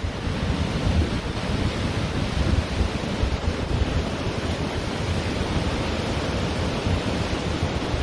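Ocean surf washing steadily onto a beach, with wind buffeting the microphone as a low, gusty rumble.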